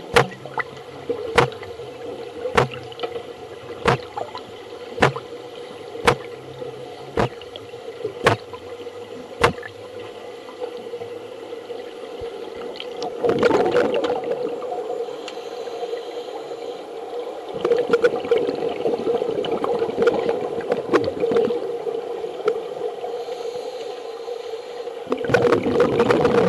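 Underwater sound in a pool heard from a submerged camera: a steady hum, sharp clicks about once a second for the first ten seconds, then gurgling rushes of scuba bubbles, the loudest near the end.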